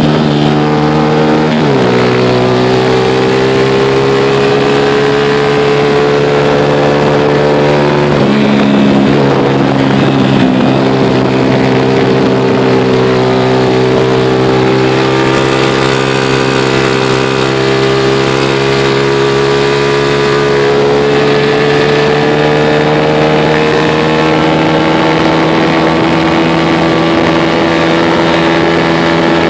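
Vehicle engine running steadily on a downhill road. Its pitch drops once about a second and a half in and then climbs slowly through the second half as speed builds.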